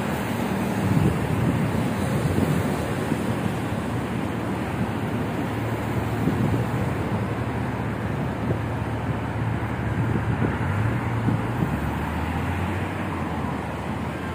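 Road traffic on a busy city street: cars and a motorbike driving past, with a steady low engine hum that drops in pitch near the end. Wind buffets the microphone.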